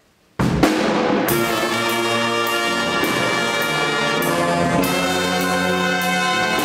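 A live jazz band starts playing about half a second in: saxophones and trumpets play a riff over a drum kit, with regular sharp drum hits.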